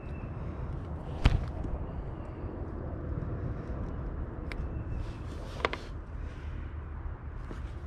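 Handling sounds as a lure is worked out of a white bass's mouth: a sharp knock about a second in and a couple of lighter clicks later, over a steady low rumble.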